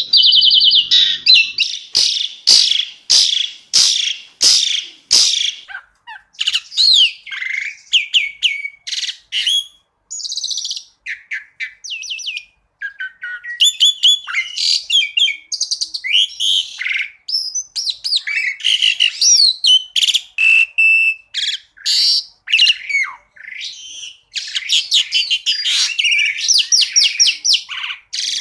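Asian pied starling (jalak suren) singing a long, fast, varied song of whistles, chatters and trills. A series of sharp clicking notes comes in the first few seconds, and a rapid run of repeated notes near the end.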